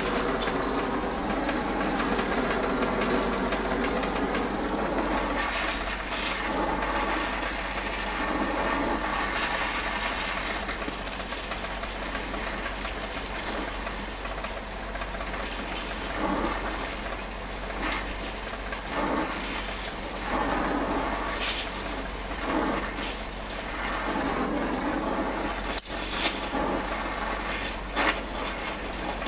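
Harris 50-3 oxy-acetylene torch flame burning steadily with a rushing hiss as it heats fluxed aluminum for welding, with a few sharp ticks in the second half.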